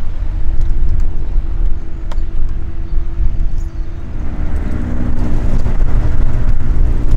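Van's RV-7 light aircraft's piston engine and propeller running steadily as it taxis, then from about four seconds in the note thickens and grows louder as power comes up for the takeoff run.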